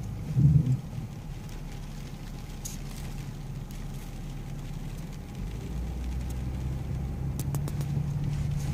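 Inside the cabin of a BMW X6 driving slowly on a muddy off-road track: a low, steady engine and tyre hum that swells somewhat in the second half. There is a short, loud blip about half a second in, and a few light ticks near the end.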